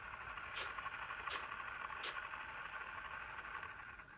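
Small electric drive motors of a homemade RC car running steadily as its rubber-tyred wheels crawl over stones and dirt. A short high tick repeats about every 0.7 seconds during the first two seconds.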